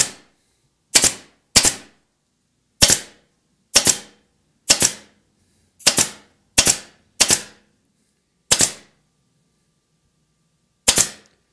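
An upholstery staple gun firing staples through burlap into the edge of a seat-back frame: about eleven sharp, loud shots at an uneven pace of roughly one a second, with a longer gap near the end.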